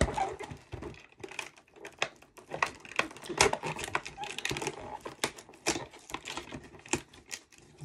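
Rustling, crinkling and a rapid, irregular run of small clicks from a cardboard advent calendar and its packaging being handled as a door is opened and the toy taken out.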